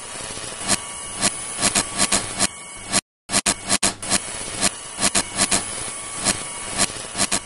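Electrical buzz-and-crackle sound effect of a lamp flickering on: a steady hiss and hum broken by irregular sharp crackles, cutting out briefly about three seconds in.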